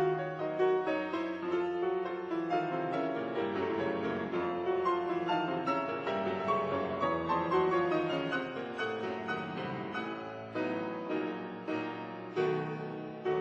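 Background piano music: a gentle melody of struck notes.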